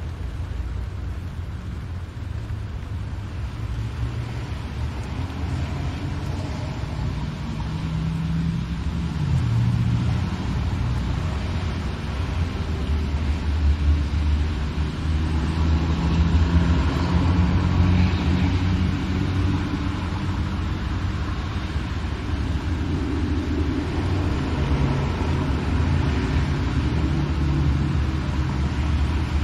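Car engine and tyre noise heard from inside the cabin on a wet road: a low rumble with a hiss of spray. It grows louder about ten seconds in.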